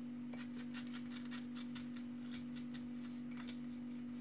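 Sugar being tipped from a small bowl into a ceramic mixing bowl of whipped egg whites, giving many light, irregular ticks and clinks. A steady low hum runs underneath.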